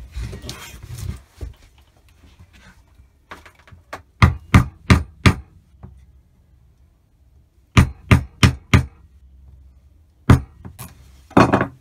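A hammer striking a wooden tapping block to knock click-together vinyl flooring planks tight. It comes as two runs of four quick taps, then a few more near the end.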